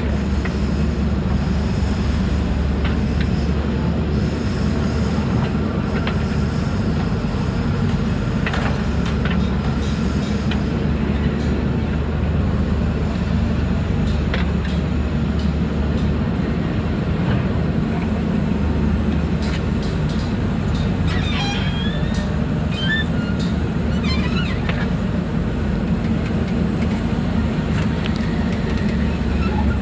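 JCB 3CX backhoe loader's diesel engine running steadily under working load while digging. A few short high squeaks come in about two thirds of the way through.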